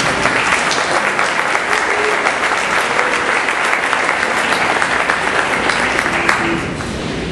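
Audience applauding: a dense patter of many hands clapping that starts at once and dies away near the end.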